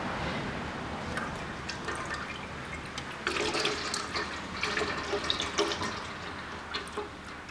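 Automatic transmission fluid pouring off the edge of a 2000 Toyota Vitz's freshly lowered gearbox oil pan and splashing into a metal drain basin: the last fluid in the pan draining out as the pan comes off. The splashing grows louder and more irregular from about three seconds in.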